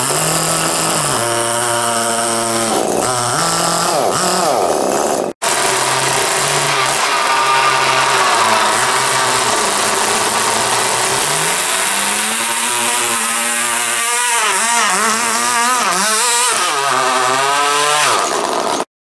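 Small nitro model engines of 1:10 RC pulling tractors running hard as they pull a weight sled, their pitch sliding up and down with the throttle. There is a short break about five seconds in where one tractor gives way to the next, and the sound cuts off just before the end.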